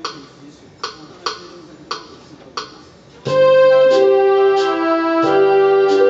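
Casio LK-175 electronic keyboard: a few sharp ticks, roughly one every half to two-thirds of a second, then about three seconds in, loud sustained chords over a bass note start, changing chord about two seconds later.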